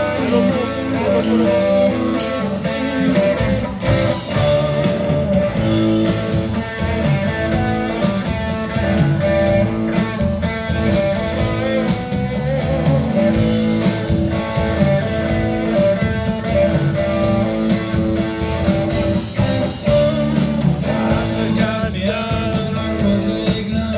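Blues-rock band playing live: electric guitars over bass, with the drum kit coming in about four seconds in and keeping a steady beat.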